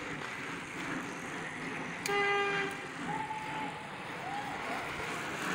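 A horn sounds once about two seconds in: a single steady, bright tone lasting about half a second, the loudest thing here. Two short, higher tones follow a second or two later, over a steady street-side background.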